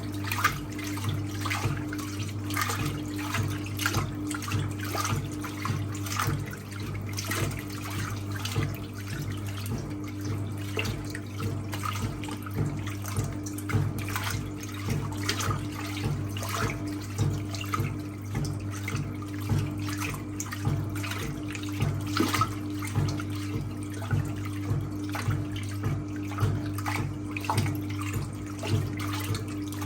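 1958 Hotpoint Empress washing machine agitating a load of towels. The motor hums steadily under rhythmic water sloshing that swells about once a second.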